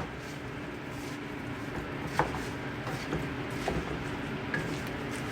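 Spoon stirring diced chicken, vegetables and stock in a deep pot, with a few light knocks of the spoon against the pot, the loudest about two seconds in, over a steady hum.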